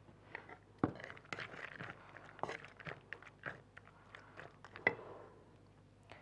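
Faint, irregular clicks, scrapes and knocks of a gas stove and the pot on it being handled, with a sharper knock about a second in and another near five seconds in. The burner has gone out and will not relight.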